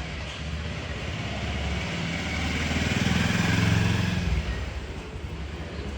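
Street traffic with a motor vehicle's engine passing close by, growing louder to a peak about three and a half seconds in, then fading.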